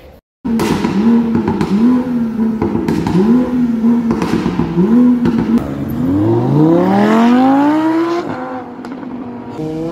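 A sports car's engine is revved in about four quick blips, then accelerates hard with a long rising pitch. The pitch drops near the end and starts climbing again.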